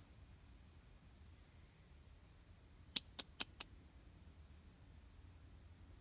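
Faint steady high-pitched insect chirring, with four quick sharp clicks in a row about three seconds in.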